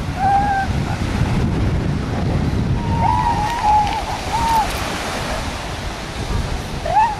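Surf breaking on the beach with wind buffeting the microphone. Over it come a few short, wavering high-pitched calls: one about half a second in, a run of them a few seconds in, and another near the end.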